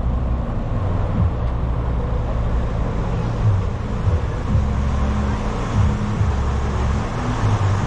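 River tour boat's engine running, a steady low drone that shifts in pitch now and then, under a constant rushing noise.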